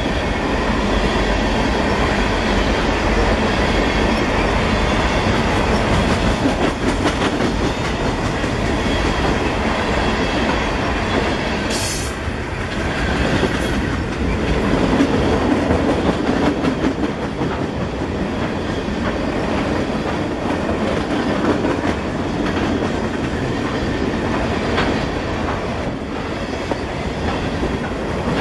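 A long string of Difco side-dump ballast cars rolling past close by: a steady rumble with the clickety-clack of wheels over rail joints. About twelve seconds in comes a short high whir, with a fainter one just after, from the camera's zoom lens motor.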